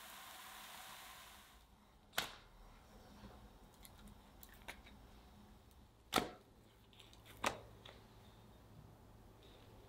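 Crepe batter sizzling softly in a pan for the first second and a half, then it stops. After that come three sharp taps, about two, six and seven and a half seconds in, with a few fainter ticks, as thin cooked crepes are handled on parchment paper.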